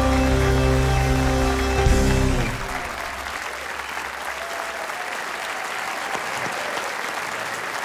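Music holding a final chord cuts off about two and a half seconds in, leaving a studio audience applauding.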